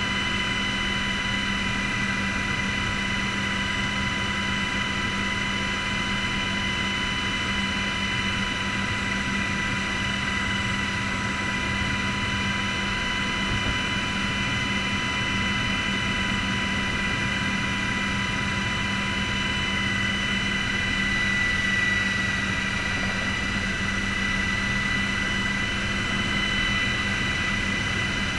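Military helicopter's turbine engines and rotor running steadily while it taxis, heard from inside the cockpit: a constant high whine over a low drone, swelling slightly about two-thirds of the way through.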